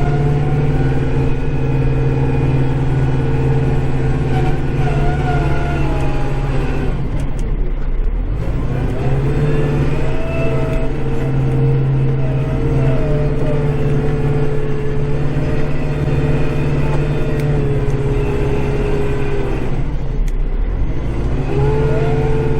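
Kubota tractor's diesel engine running steadily, heard from inside the cab; its pitch sags and recovers twice, about eight seconds in and again near twenty seconds, as the engine labours and picks up again.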